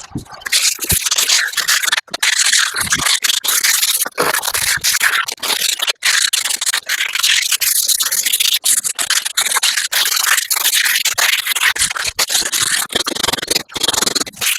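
Sandpaper being rubbed by hand over a sailboat's top deck in quick back-and-forth strokes, a continuous dry scratching with brief pauses, keying the surface for primer.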